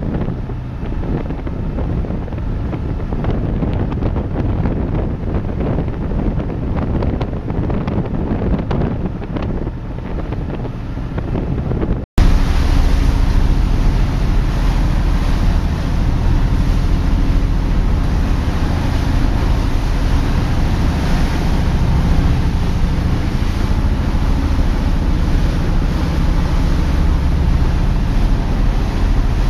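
Wind buffeting the microphone and the wake rushing on a passenger ferry's open stern deck under way. About twelve seconds in, the sound cuts to a steady low drone of the ship's engines heard inside the bridge.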